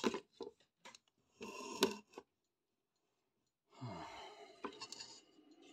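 Handling noise from a thin sheet-metal panel being shifted and slid over a wooden workbench: short scrapes and clicks, one sharper click about two seconds in. A sigh comes about four seconds in, then more rustling and scraping.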